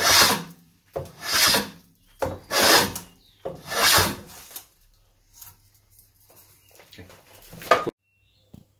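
Handmade Krenov-style wooden scrub plane with a scrub blade shaving a board held in a bench vise: four strong strokes about a second apart, then lighter strokes and a sharp knock just before the sound cuts off.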